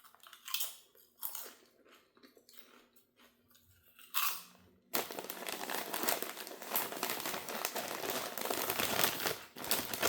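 Potato chips crunching as they are chewed: a few separate crunches at first, then a dense, continuous crackle from about halfway through.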